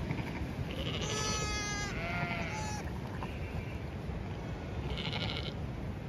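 Newborn Zwartbles lambs bleating, about four short high-pitched calls a second or so apart, over a steady low rush of wind.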